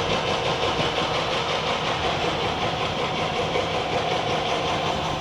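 Engine noise, steady and unchanging, with a faint constant hum.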